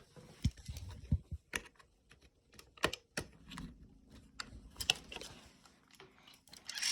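Irregular light clicks and taps, with a few soft knocks in the first second or so, from hands handling the plastic and metal parts of an animatronic figure's bending mechanism and its loose spring.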